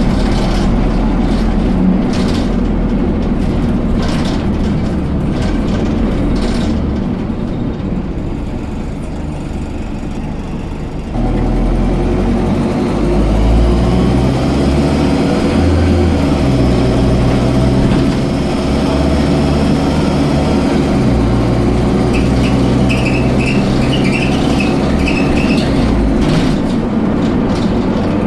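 Dennis Dart SLF bus's diesel engine running quietly, then pulling away hard about a third of the way in, its note climbing in steps through a gear change. A faint high whine rides over it under acceleration: the strange acceleration noise the owner can't describe.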